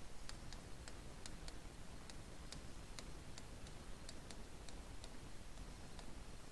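Faint, light, irregular ticks, about three a second: a pen stylus tapping against a digital writing surface as a word is handwritten.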